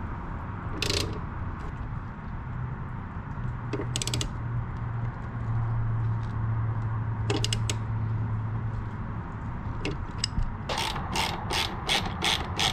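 Ratchet wrench clicking as it tightens the crash-bar mounting bolts: a few separate clicks, then a steady run of about three or four clicks a second near the end. A low hum sits under the middle part.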